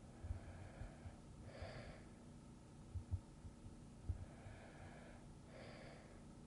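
Soft, slow breathing of a sleeping person: two breaths about four seconds apart, each a longer soft draw ending in a brief, breathier puff. Faint low thumps sound irregularly underneath.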